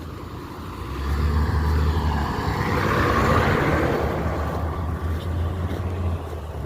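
A fuel delivery truck driving past, its engine drone and road noise swelling about a second in, loudest around the middle, then easing off while the low engine drone carries on.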